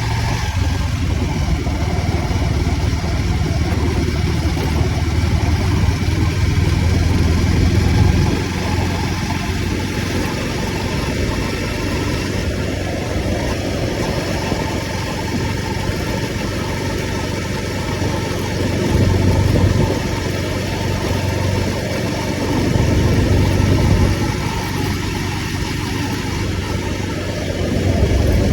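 Motorcycle engine running through a city ride, its note swelling and easing off several times as it pulls away and slows, over steady road and traffic noise.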